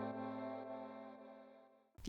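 Background music: a held chord with a low bass note, fading out to silence about a second in.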